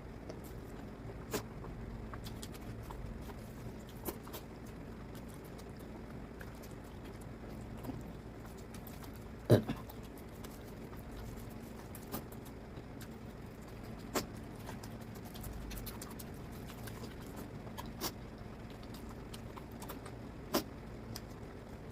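Close-miked eating sounds: scattered short wet clicks and smacks of someone eating mutton fat curry with rice, one every couple of seconds, with one louder knock about ten seconds in, over a low steady hum.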